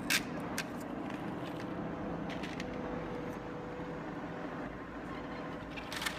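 A few light clicks of pebbles knocking against plastic toy parts, a sharp one right at the start and fainter ones scattered after it, over a steady low hum.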